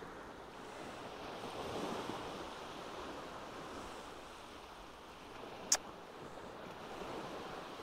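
Low sea waves washing onto the beach, a steady hiss that swells gently twice. A single sharp click comes near the end.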